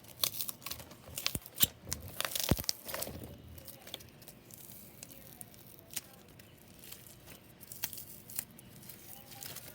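Foam packing peanuts being crushed and squished into thick glue slime by hand: irregular crackling and crunching, dense for the first few seconds, then thinning to scattered pops and squelches.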